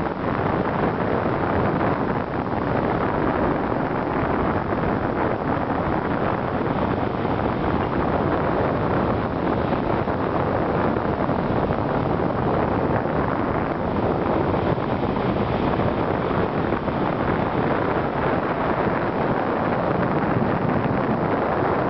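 Steady rush of wind over the microphone from the airflow of a paraglider in flight.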